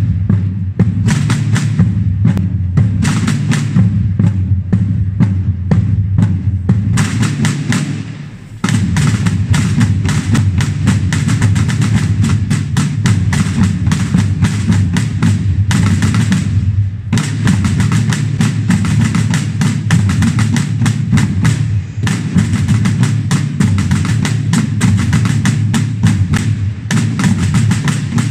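A Holy Week processional drum band of field drums playing a steady, rapid marching rhythm together, with a short pause between phrases about eight seconds in.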